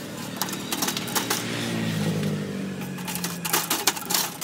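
Metal tongs clicking and rattling on a wire charcoal grill while banana-leaf-wrapped sticky rice packets are turned, a quick irregular run of clicks. A low drone slowly falls in pitch in the middle.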